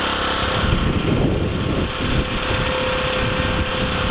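Small generator engine running steadily, with a rougher, uneven low rumble from about half a second in. Its fuel line has run dry, so it is running on the gasoline left in the carburettor float bowl with hydrogen-oxygen gas from an electrolyser fed in.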